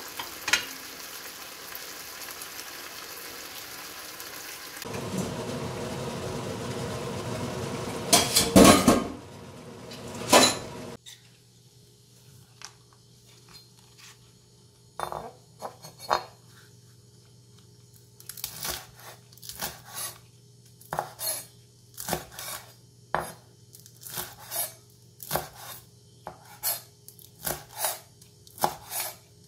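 Kitchen knife slicing green onions on a wooden cutting board: sharp single knocks, a few at first, then a steady run of about two strokes a second through the second half. Before the slicing, a stretch of noise with a few loud knocks and clatters; a low steady hum lies under the slicing.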